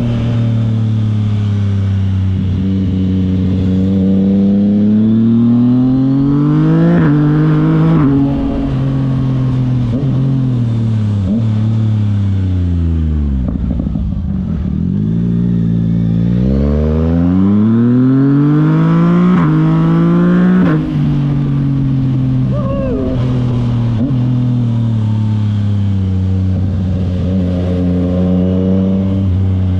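Yamaha MT motorcycle engine under way: it revs up, makes a quick upshift about eight seconds in, winds down almost to idle with a scatter of small pops, then pulls up through the revs again with another sudden shift around twenty-one seconds, then cruises.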